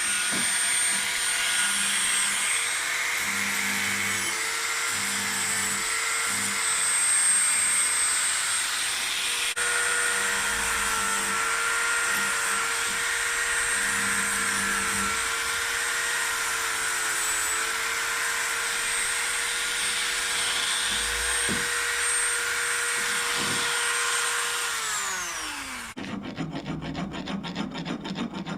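Small electric grinder running steadily under load, grinding down solder on a repaired metal candelabra arm, then winding down near the end. A file then rasps in quick strokes.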